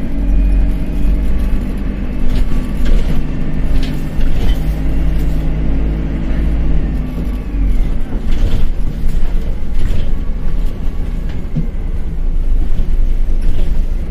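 Dennis Dart single-deck bus's diesel engine running under way, a steady low rumble whose note changes about seven seconds in. Short rattles and knocks are scattered through it.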